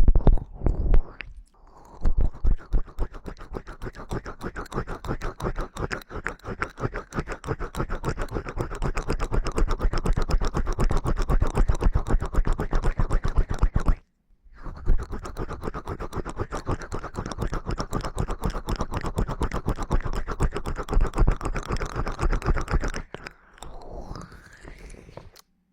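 ASMR ear-cleaning sounds: rapid, dense scratching and rubbing right on the microphone. They come in two long runs, with a brief break about 14 seconds in and a quieter stretch near the end.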